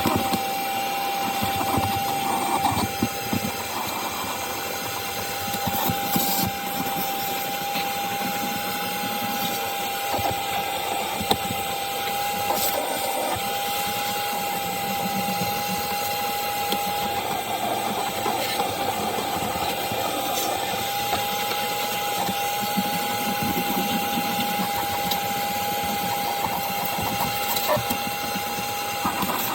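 Ridgid cordless 3-gallon wet/dry vacuum running with a steady motor whine that dips slightly in pitch now and then as the crevice tool is worked over car carpet. Scattered clicks and rattles of grit and debris are sucked up through the nozzle.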